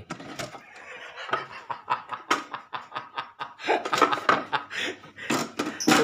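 A man laughing in a run of short, breathy bursts.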